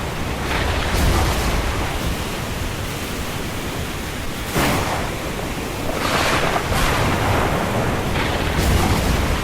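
Windstorm ambience: a steady rushing of wind over a deep low rumble, with gusts that swell several times, the sharpest coming on suddenly about halfway through.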